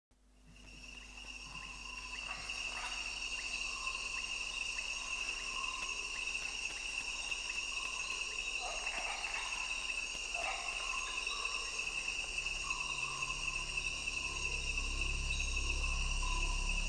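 Chorus of crickets fading in, with a couple of short chirps about 9 and 10 seconds in. From about 12 seconds a low electronic drone in C-sharp (136.1 Hz, the 'Om' tone) and a pulsing bass fade in beneath, as an electronic track begins.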